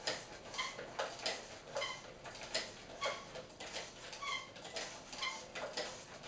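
Myon humanoid robot walking backwards: with each step its leg joints give a short pitched whine together with a click or knock, about one to two a second in a steady rhythm.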